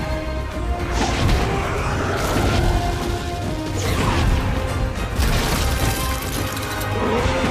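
Dramatic orchestral film score over a series of heavy crashes and impacts, coming roughly every second or so.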